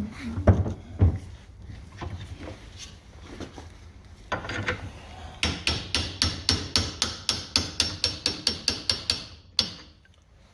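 A rapid, even run of light hammer taps on metal, about five a second for some four seconds, after a few heavier knocks near the start: tapping the pump's packing and sleeve home on the piston.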